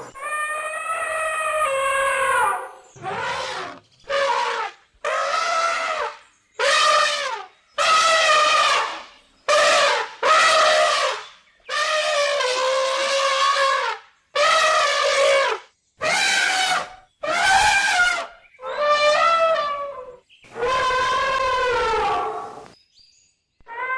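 Elephant trumpeting: a series of about a dozen loud, brassy calls, each half a second to two seconds long, separated by short gaps.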